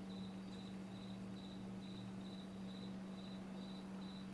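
Quiet room tone: a steady low hum under a faint high chirp that repeats evenly about twice a second.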